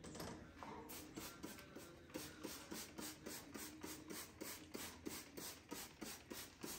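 Trigger spray bottle of cleaning product pumped in quick succession: a rapid, faint series of short sprays, several a second.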